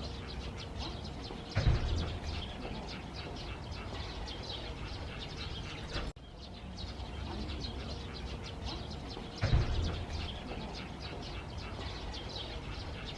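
Small birds chirping rapidly and continuously, with a dull thud about a second and a half in and another a few seconds before the end.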